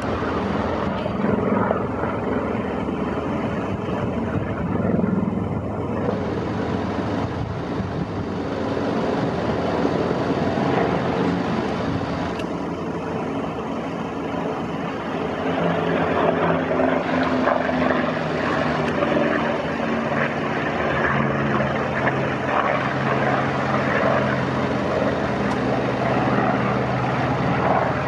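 Propeller-driven fighter plane flying overhead, its engine running with a steady drone that grows a little louder in the second half.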